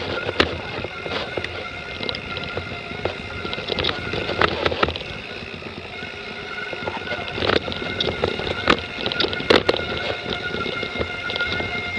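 Mountain bike rolling over a rough dirt trail: a steady rolling noise broken by frequent sharp knocks and rattles as the bike jolts over bumps.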